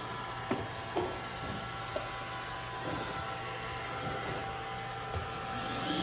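iRobot Roomba i3+ robot vacuum running as it backs off its Clean Base dock to start cleaning: a steady motor hum and whine with a few faint clicks.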